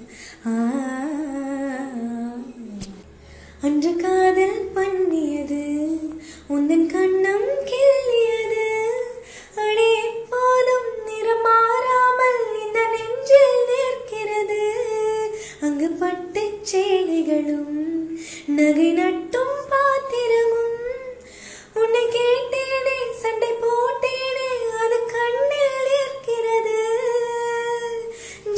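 A woman singing a melody, much of it hummed, in phrases with short breaks.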